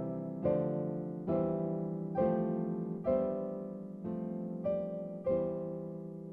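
Background piano music: notes and chords struck about once a second, each one dying away before the next.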